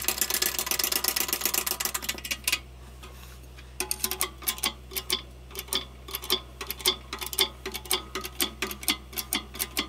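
Hand-pumped shop press clicking as it pushes a new bearing race into a Ford tractor's pinion housing. There is a fast, dense run of ticking for about two and a half seconds, a short pause, then separate clicks about three a second.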